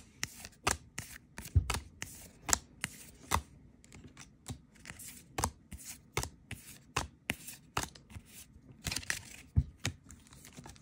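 Paper trading cards from a One Piece Card Game booster pack being flipped through by hand, each card slid from the front to the back of the stack with a sharp snap, in an irregular series of clicks about one or two a second.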